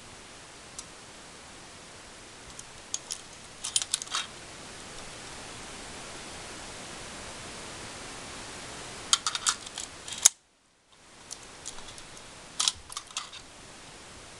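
Kenko macro extension tubes being handled and twisted together, their metal bayonet mounts clicking and scraping in three short clusters of clicks over a steady hiss. The sound cuts out completely for under a second just past the middle.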